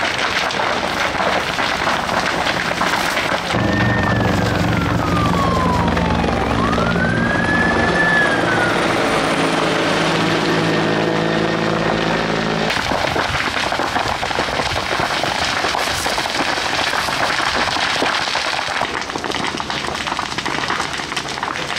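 Brush and reed fire burning hard, a constant rushing crackle with fine pops, mixed with the spray of a fire hose jet. From about three and a half seconds in, a low steady hum joins for about nine seconds, and a high tone glides down and back up in a siren-like wail.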